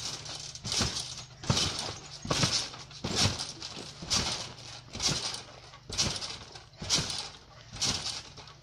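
A child bouncing on a garden trampoline: regular thuds from the mat about once a second, each with a short hiss.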